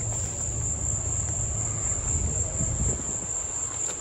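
Steady high-pitched drone of an insect chorus, one unbroken tone, over a low rumble.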